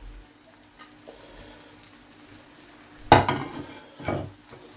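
Chopped onion being pushed off a plate into a frying pan of cabbage, with two sharp clatters of the plate against the pan about three and four seconds in, over a faint frying hiss from the hot buttered pan.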